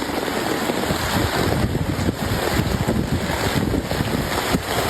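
Steady rushing noise of wind and moving water, with wind buffeting the microphone.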